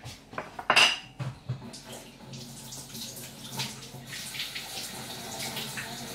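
Water running at a kitchen sink, with dishes and utensils clinking. A few sharp knocks come in the first second and a half, the loudest about a second in.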